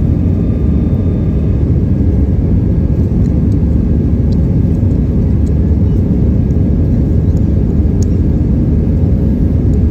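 Jet airliner cabin noise heard from a window seat over the wing: a steady low roar of engines and rushing air, unchanging in level.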